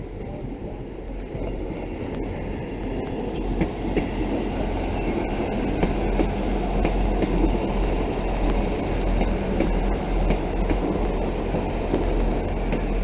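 British Rail Class 159 diesel multiple unit pulling into a platform: its underfloor diesel engines running under a steady low hum, with wheels clicking over rail joints. The sound grows louder over the first few seconds as the train draws in, then holds steady.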